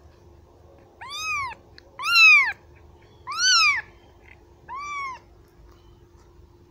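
Kitten meowing four times, a little over a second apart, each high-pitched call rising and then falling in pitch, the second loudest: a kitten crying for its mother.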